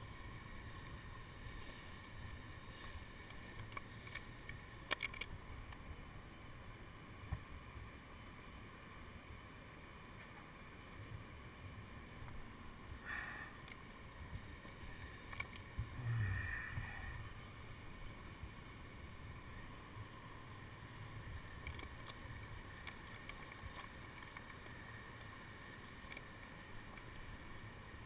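Wind rumbling on a helmet camera's microphone, with a few light clicks and knocks of steel carabiners and lanyard hardware being handled. The loudest is a knock about sixteen seconds in.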